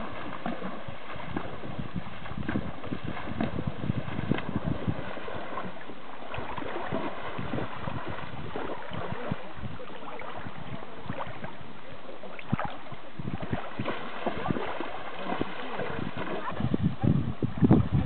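Water splashing and lapping with irregular crackles, as horses wade through a shallow river. Wind buffets the microphone in uneven gusts near the end.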